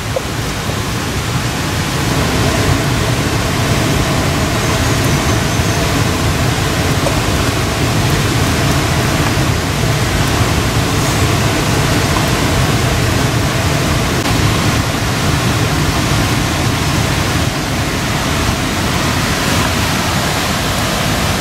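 Steady loud rushing noise, even from low to high pitch, growing slightly louder about two seconds in.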